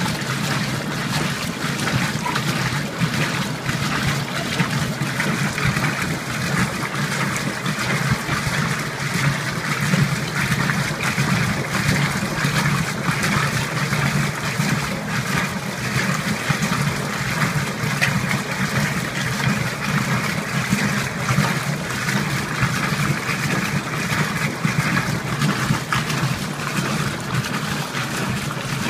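Old Magic Chef top-load washing machine agitating: water and clothes sloshing around the agitator over a steady low hum.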